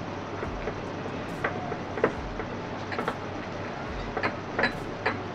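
Metal spoon stirring and scraping thick semolina and gram flour batter in a glass bowl, with irregular clicks as it knocks against the glass. A steady low hiss runs underneath.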